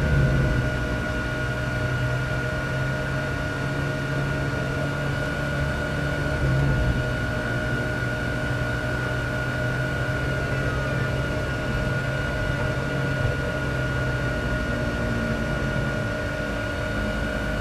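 Lamborghini Gallardo Super Trofeo race car's V10 engine running steadily at low revs, heard from inside the cabin, as the car rolls at walking pace. A thin, steady high whine runs alongside it.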